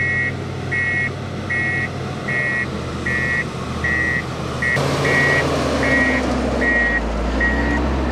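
Reversing alarm on heavy road-building machinery beeping evenly, about four beeps every three seconds, over diesel engines running. The engine noise grows louder about halfway through.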